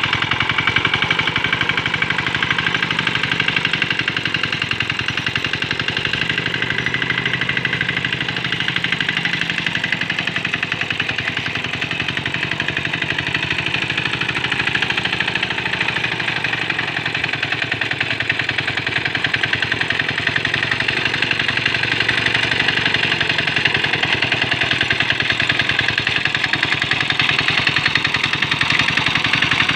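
Small diesel engine of a Quick Capung Metal hand tractor running steadily at an even speed, with a rapid, regular firing beat.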